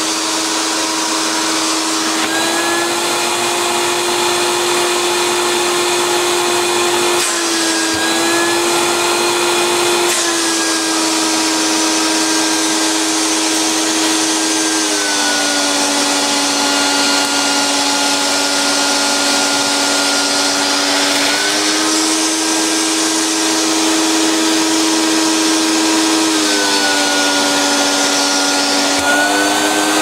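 Hoover Turbo Power 1000 upright vacuum cleaner's motor running with a steady whine. Its pitch steps down and back up several times as its AutoSense control switches between power settings.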